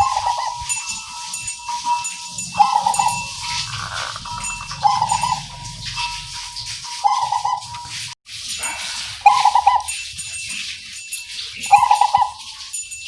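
Zebra dove (perkutut) cooing, repeating its short, warbling song phrase about every two seconds, six phrases in all.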